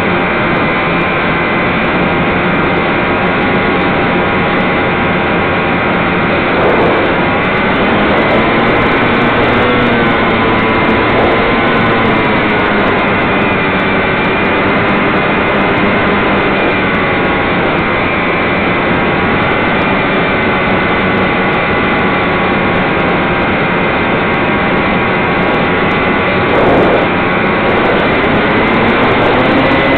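Electric motor and propeller of a HobbyZone Stratocam RC airplane, heard from its onboard camera: a steady whine of several pitches over a rushing noise, the pitch drifting slowly up and down and rising about seven seconds in and again near the end.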